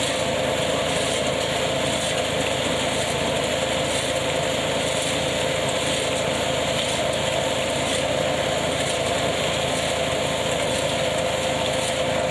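Tractor-driven KF-501 hazelnut picking machine running steadily: a constant mechanical drone with one steady whining tone and no change in speed.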